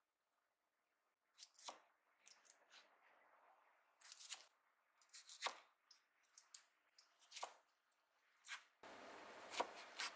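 A chef's knife slicing through a cucumber onto a plastic cutting board: about ten separate crisp cuts, each ending in a tap on the board, spaced irregularly a second or so apart. A faint steady hiss of room noise comes in near the end.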